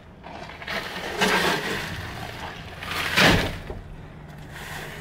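Heavy plastic bags of landscaping rock being set down in a car's cargo area, twice, about two seconds apart: a dull thud with crinkling plastic and shifting stones each time, the second one louder.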